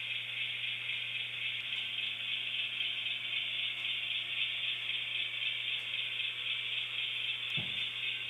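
Model railroad locomotive running, a steady high rattling whir of its motor and gears over a low steady hum, with one brief low bump near the end.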